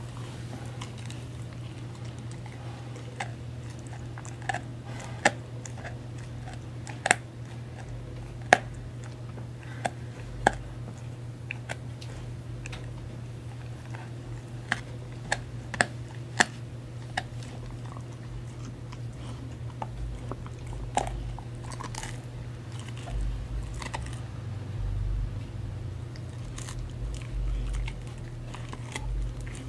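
A husky gnawing a Purina Busy Chewnola chew treat: irregular sharp crunches and cracks, a few of them loud, coming thickest in the first half, over a steady low hum.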